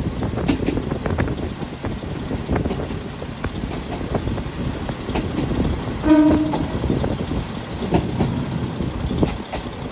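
A diesel train running on the rails, a steady rumble with scattered clicks, and a short horn blast a little after six seconds in.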